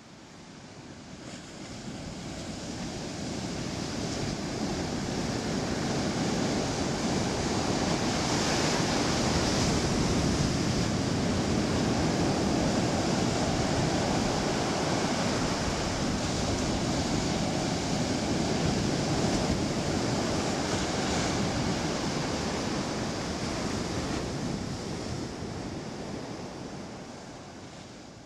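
Ocean surf washing up a sandy beach: a continuous rush of breaking waves that fades in over the first several seconds and fades out near the end.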